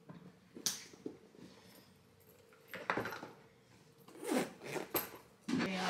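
Handbags being handled and unpacked on a counter: a sharp click, then a few short rustling scrapes of bag fabric and contents. A steady hum begins right at the end.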